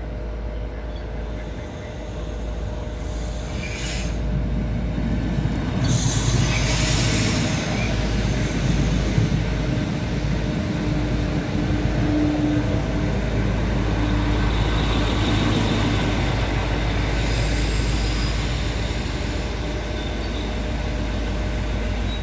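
A regional passenger train runs into the station and passes close by with a steady rumble of wheels and running gear that grows louder as it comes alongside. A squeal of wheels or brakes comes in around the middle of the pass.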